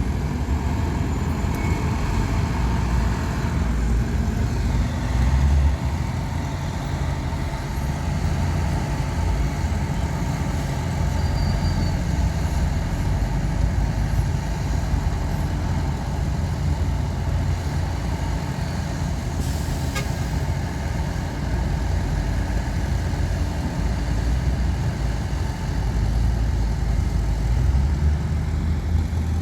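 Heavy diesel earthmoving machinery running steadily: a continuous low engine rumble.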